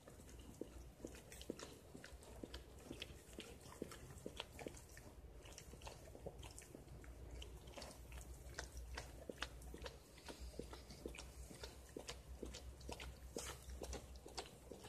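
Faint, irregular wet clicks and smacks of a mother dog licking her newborn puppy clean.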